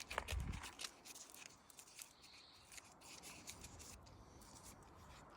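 Faint scattered clicks and rubbing noises from something being handled, with a slightly louder cluster of clicks in the first second.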